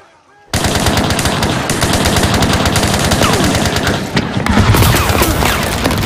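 Heavy automatic gunfire breaking out suddenly about half a second in: many rapid shots from several weapons at once, continuing without a break.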